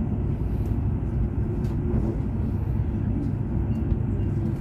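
Steady low rumble of a CR400BF-Z Fuxing high-speed train running at speed, heard inside the passenger cabin.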